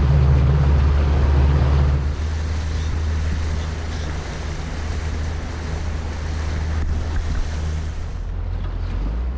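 Yamaha outboard motor running steadily, with wind on the microphone and water rushing past the hull. The sound changes abruptly about two seconds in and again near the end.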